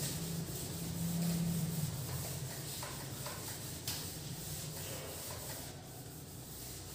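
Felt whiteboard eraser wiping marker off a whiteboard: a soft, repeated rubbing, with one small click about four seconds in.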